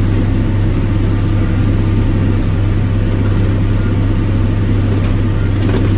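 Tractor engine running steadily while baling hay, a constant low hum with no change in speed.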